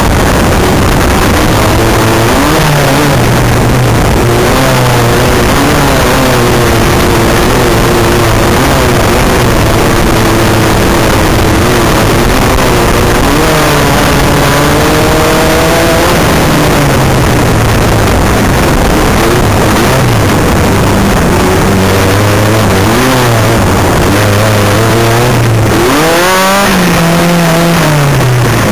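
Off-road race buggy's engine, heard from inside the cockpit, revving up and down in pitch as it accelerates and eases off, over a steady rushing noise. Near the end the revs rise and fall more quickly and sharply.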